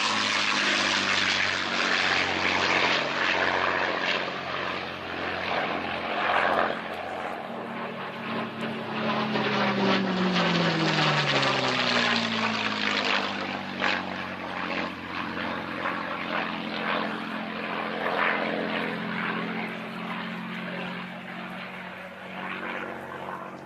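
P-51D Mustang's Merlin V12 piston engine and propeller running hard in a low fly-past. The pitch drops as it passes about ten seconds in. The sound then fades as it climbs away.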